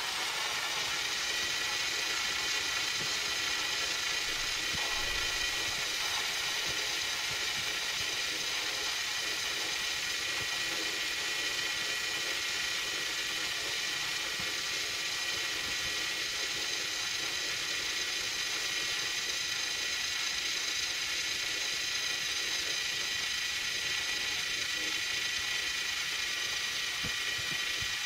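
Sony DVD/VHS combo's tape transport winding a videocassette at high speed: a steady mechanical whir with a high whine of several held tones over a hiss.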